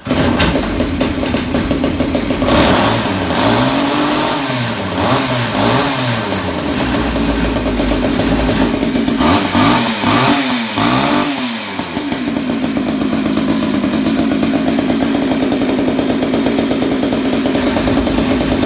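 Homelite 240 two-stroke chainsaw engine starting up and running: it is revved up and down several times during the first twelve seconds or so, then settles into a steady idle. It runs well, with good compression.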